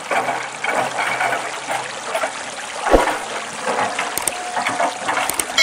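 Water splashing and trickling as a Huina 1550 RC excavator moves its tracks and bucket through a shallow muddy stream, with a single thump about three seconds in.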